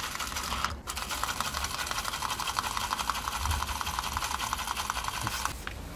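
Small electric motor and plastic gearbox of a solar-powered toy robot whirring, powered by its solar panel and spinning the wheels freely while the robot is held off the ground: a steady, fast buzzing that drops out briefly just under a second in and stops near the end.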